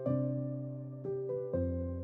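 Soft background music: a slow melody of struck notes that ring and fade one after another.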